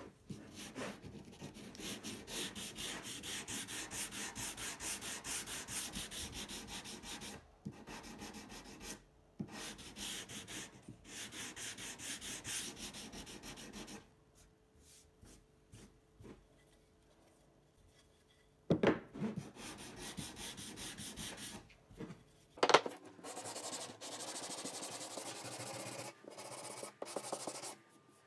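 Hand sanding an oak strip with a sanding block: quick, even back-and-forth scrubbing strokes. The strokes stop for a few seconds, two sharp knocks follow, and the sanding starts again near the end.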